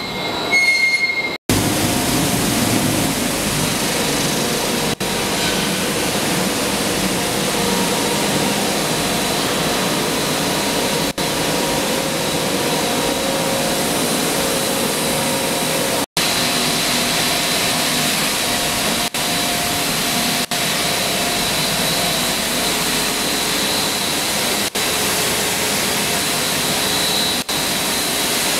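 PE/PP film pelletizing line running: a steady, dense machinery noise from the extruder, its vertical forced feeder and drive motors, with a constant high whine and lower hums running through it. The sound cuts out for an instant several times.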